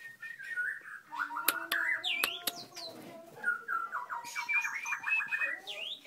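White-rumped shama singing: whistled phrases mixed with sharp clicking notes, then a fast run of repeated notes in the second half that ends in a rising whistle.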